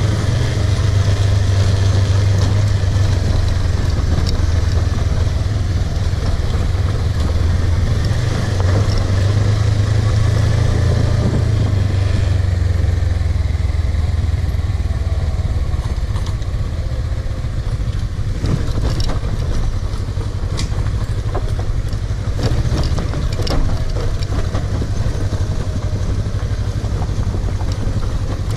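Suzuki V-Strom 250 motorcycle's parallel-twin engine running while riding an unpaved track, a steady low drone that eases after about twelve seconds. Scattered sharp clicks and knocks come in the second half.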